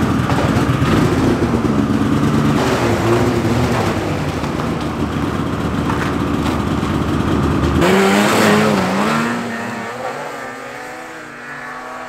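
Polaris snowmobile engine running hard and steady. About eight seconds in, a snowmobile engine heard from farther off takes over, its pitch rising and falling as it speeds across the snow.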